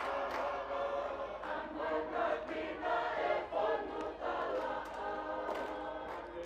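Tongan lakalaka chorus: a large mixed group of voices singing together in full chorus, with several sharp hand claps scattered through it.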